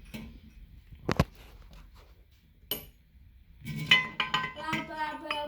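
Loose metal parts clinking and knocking: one sharp knock about a second in and a lighter click shortly after. A person's voice makes wordless sounds over the last couple of seconds.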